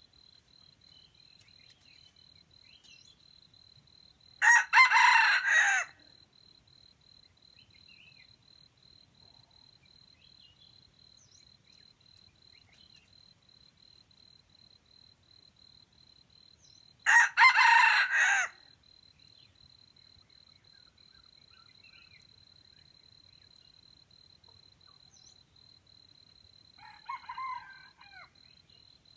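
Junglefowl rooster crowing twice, each crow loud and about a second and a half long, with a fainter crow near the end from a more distant bird. A steady thin high-pitched insect whine runs underneath.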